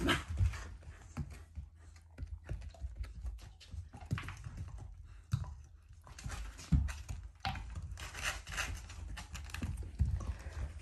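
Irregular light clicks and taps of a Shiba Inu's and a black Labrador's claws and paws on a woven floor mat as the two dogs scramble about, with a few duller thumps.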